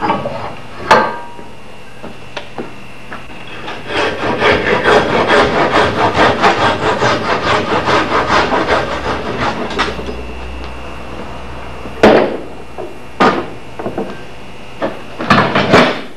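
Rapid back-and-forth strokes of a hand file rasping the protruding end of a wooden axe handle, fitted into the axehead, flush in a vise, about three strokes a second. A few sharp knocks fall before and after the run of strokes.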